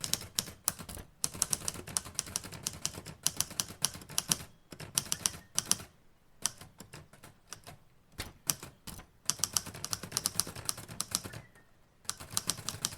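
Typewriter keys clacking in quick runs of keystrokes, broken by short pauses, as an order is typed out.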